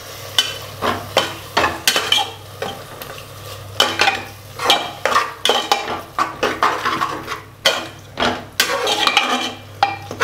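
Stainless steel slotted spatula stirring and scraping thick masala around an aluminium pressure cooker, quick irregular scrapes and clinks of metal on metal, about two or three a second.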